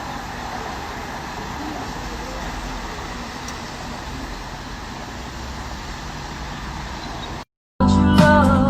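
Steady road and traffic noise from a car driving, an even rumble with no distinct events. About seven and a half seconds in it cuts off abruptly, and loud music with a sung melody starts right after.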